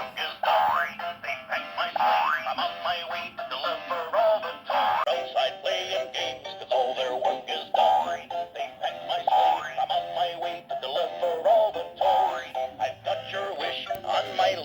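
Animated singing Santa Claus toy playing its Christmas song through its small built-in speaker: a recorded voice singing over a jingly tune, thin and with little bass. The toy's jumping mechanism is worn out, so it only sings.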